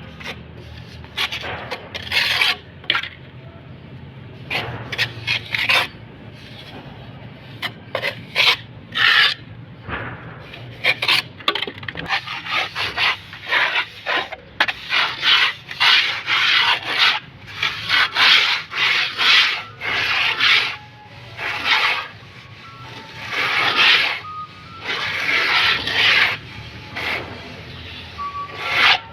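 Mason's trowel scraping and spreading cement mortar for floor tiles, in many irregular strokes.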